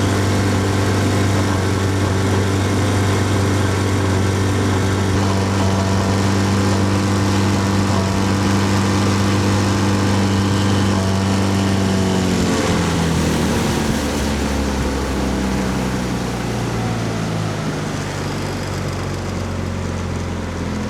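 A 15 hp four-stroke outboard motor running at wide open throttle after warming up, starting to misfire at high RPM. A little past halfway it slows down, its pitch falling, and it runs on at a lower speed.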